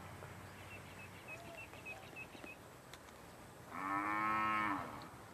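A cow moos once near the end, a single steady call lasting just over a second.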